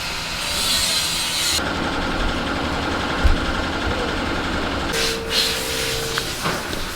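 Machinery in small metalworking shops running, a steady mechanical din with a high hiss over the first second and a half and a steady whine about five seconds in.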